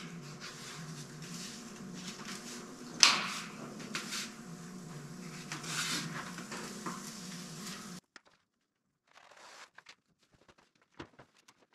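Rustling and crinkling of a sheet of masking material being handled and laid on a car roof, with a sharp crackle about three seconds in, over a steady low hum. The hum cuts off abruptly about eight seconds in, leaving only faint rustles and taps.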